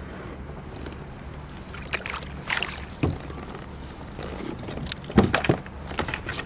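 A small hooked fish splashing at the surface as it is lifted out of the water on a fishing rod, with sharp knocks and splashes of the fish and tackle against the kayak. The splashing and knocking starts about two seconds in and peaks about five seconds in.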